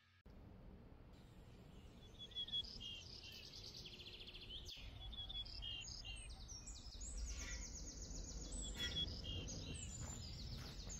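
Small songbirds chirping and singing, with many short high calls and quick trilled phrases, over a steady low rumble of background noise.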